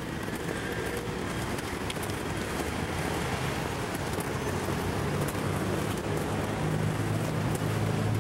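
Street traffic: a steady wash of passing cars, with a low vehicle engine hum that grows louder over the last few seconds.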